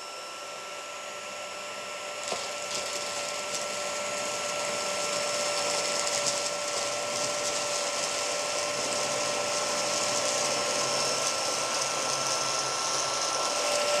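Homeika P10 cordless stick vacuum running on a hardwood floor as it picks up crushed pita chips: a steady motor whine over a rush of air, slowly growing louder as the floor head passes closer.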